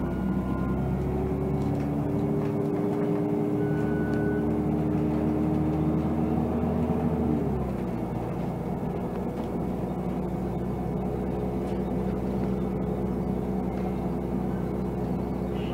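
Volvo 7000A natural-gas articulated bus engine, heard from inside the passenger cabin while the bus is under way. The engine note climbs slowly, drops abruptly about seven and a half seconds in, then runs steadily.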